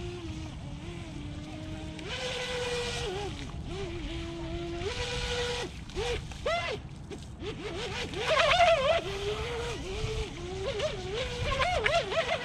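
Brushless motor of a SprintJet micro RC jet boat whining, its pitch rising and falling in repeated throttle bursts with a few quick blips, loudest about eight seconds in.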